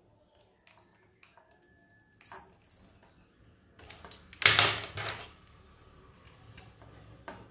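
Hands and a small screwdriver working on a graphics card's fan assembly, taking out a leftover screw: light clicks and a few brief squeaks, then a louder scrape lasting under a second, about four and a half seconds in.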